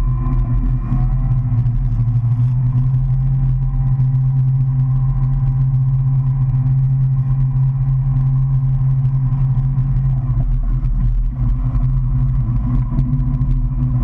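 Motorboat engine running at a steady cruising speed under load while towing a tube: a deep, even drone, with water rushing from the wake.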